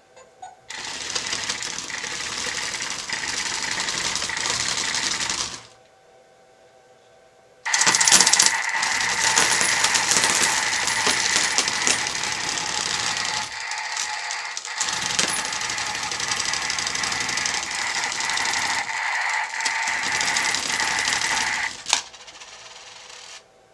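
A bomb-shaped alarm clock coin bank sounding its alarm: a loud, continuous rattling buzz. It starts under a second in and stops for about two seconds, then runs again with two brief dips and cuts off near the end.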